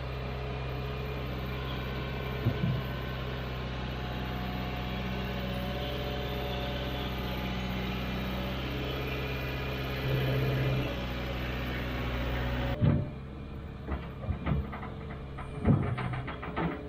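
New Holland compact track loader's diesel engine running steadily, rising briefly about ten seconds in. The engine sound stops abruptly a few seconds before the end, giving way to several sharp knocks and clicks.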